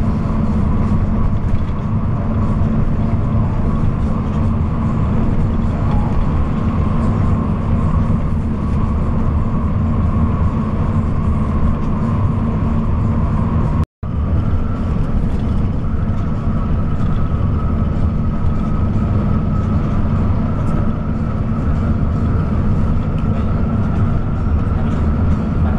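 Bus running at highway speed: steady, loud engine and road noise with a constant whine. It is cut off for an instant about 14 seconds in, and the whine comes back slightly higher.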